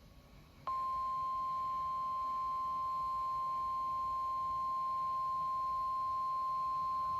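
NOAA Weather Radio 1050 Hz warning alarm tone: a single steady pure tone that switches on abruptly about a second in and holds unchanged. It is the alert signal that comes before a spoken tornado watch.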